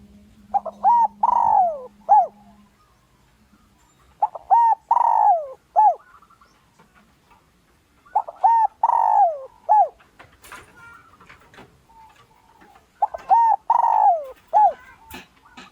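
Spotted dove cooing: four call phrases about four seconds apart, each two short coos, a long falling coo and a short closing coo. It is a lure bird's call, meant to provoke wild males into coming in to fight.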